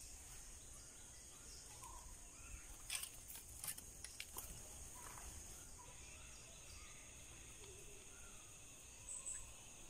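Quiet garden ambience: a steady high-pitched insect drone with faint bird calls, and a few sharp clicks between about three and four and a half seconds in.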